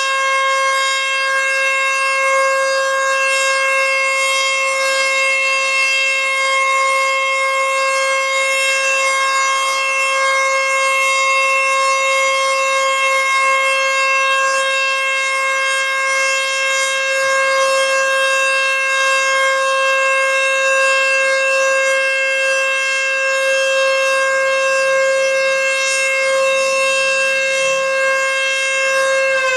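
American Signal T-121 outdoor warning siren sounding its steady alert signal: one loud, unwavering pitch, with the siren starting to wind down, falling in pitch, right at the end.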